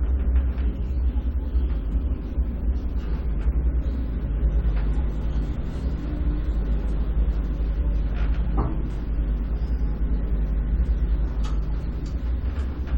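Electric elevator car in motion: a steady low rumble with a faint hum above it and a few light clicks and rattles.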